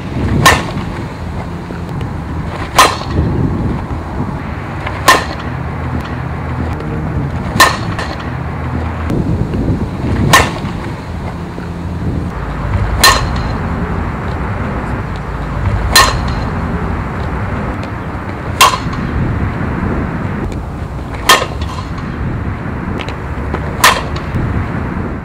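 A softball bat hitting pitched balls, ten sharp cracks with a brief ring, one about every two and a half to three seconds, over a steady low background rumble.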